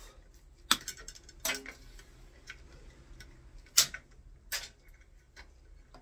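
Metal side cutters clicking and snipping as the grey outer sleeving is cut away from twin-and-earth cable. About six sharp clicks, irregularly spaced, two of them louder than the rest.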